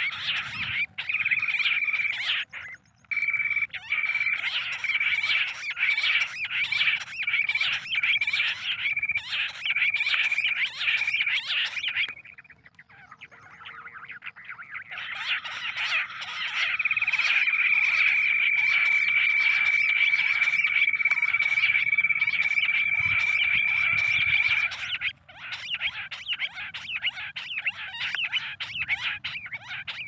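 Bush quail calls played through a loudspeaker as a hunting lure: a dense, rapid chatter over a steady high whistling tone. The chatter breaks off for a couple of seconds near the middle, and the tone then holds unbroken for several seconds.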